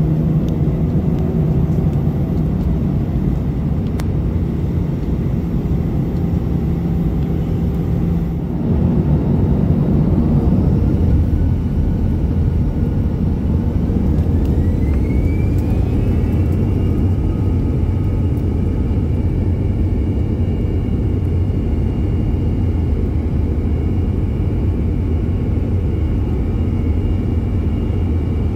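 Airbus A321-200's turbofan engines heard from inside the cabin over the wing: a steady low rumble while taxiing, then from about halfway through a whine rising in pitch as the engines spool up to takeoff thrust, holding as a steady high whine over the rumble.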